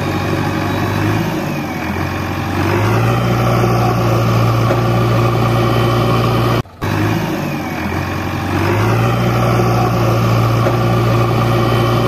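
JCB 3DX backhoe loader's diesel engine running hard as the machine tries to pull itself out of deep mud. It revs up about three seconds in, drops out briefly near the middle, then revs up again.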